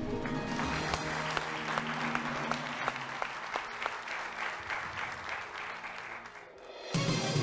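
Studio audience applauding a correct answer over game-show music, the clapping dense and even. The applause fades about six and a half seconds in, and a louder stretch of music comes in near the end.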